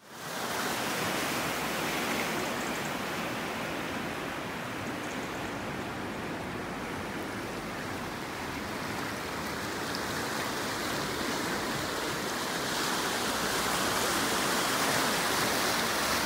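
Burn in spate, swollen floodwater rushing steadily with white water as it breaks its banks; the rush grows a little louder about three-quarters of the way through.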